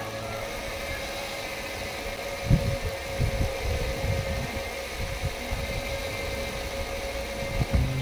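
Electric drill running steadily as a step drill bit cuts into a steel flat bar, with a few low thumps about two and a half seconds in and again near the end.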